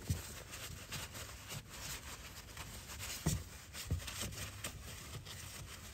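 Faint rubbing and rustling of a shop towel wiping spilled diesel off the fuel filter housing, with small clicks and a couple of soft knocks about halfway through.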